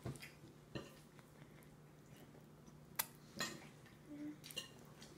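Toddler eating spaghetti with her hands: faint, scattered taps and smacks of fingers on the high-chair tray and mouth chewing, with one sharper tap about three seconds in.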